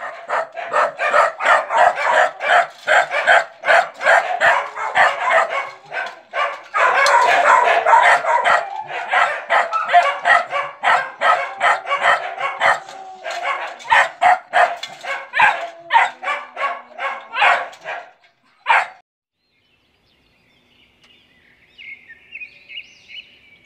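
Young Indonesian village hunting dog barking in quick succession, bark after bark, at a wire cage, stopping after about eighteen seconds. A short chiming logo jingle starts faintly near the end.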